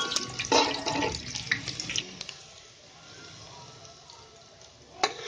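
Chopped onion sizzling loudly in hot oil with cumin seeds, dying down about two seconds in. A single sharp knock near the end.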